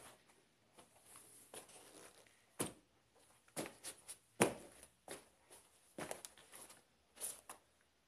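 Sneaker-clad feet stomping and treading on a pile of sneakers on carpet: a string of irregular soft thuds with shuffling and rubbing in between, the loudest thud a little past halfway.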